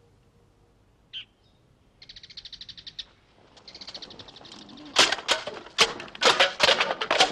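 Japanese swords clashing in a fast exchange: a run of loud, sharp, irregular strikes that begins about five seconds in. Earlier come a brief chirp and two rapid, even trills of ticks, like a bird.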